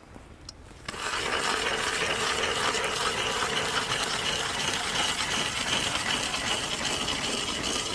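Hand-cranked ice auger drilling through ice: a steady grinding scrape of the blades cutting the ice, starting about a second in.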